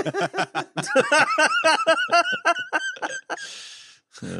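Hearty human laughter, a rapid run of ha-ha pulses, trailing off into a breathy gasp near the end.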